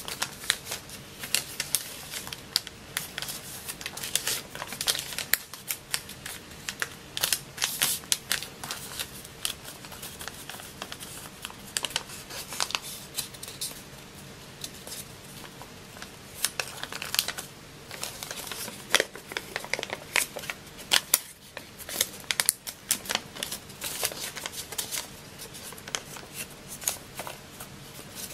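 A sheet of paper being folded and creased by hand: irregular rustling and crinkling, with sharp crackles as the folds are pressed flat.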